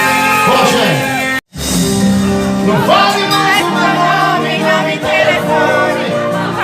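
Live band music with a wavering melodic lead over a steady accompaniment. The sound cuts out completely for a split second about one and a half seconds in.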